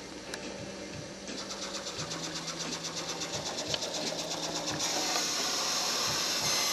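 Robodyssey Mouse robot's drive motors whirring as it drives itself along the maze, with a rapid, even ticking that gives way about five seconds in to a steadier, louder high hiss.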